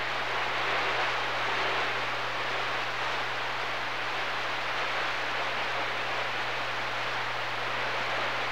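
CB radio receiver on channel 6 (27.025 MHz) giving a steady hiss of band static, with a low hum underneath; nobody is transmitting.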